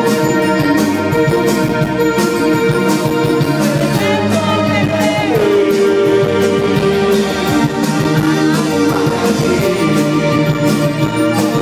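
Live band playing through a stage PA: held keyboard chords, electric guitar and drums, with a singer's voice sliding down in pitch about four seconds in and again near nine seconds.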